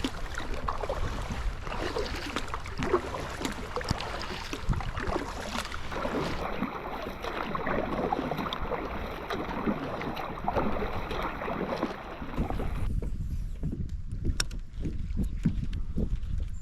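Kayak out on the water in rain: steady splashing and pattering with many small sharp ticks, and wind rumbling on the microphone. About thirteen seconds in the higher hiss drops away abruptly, leaving mostly the low rumble and the ticks.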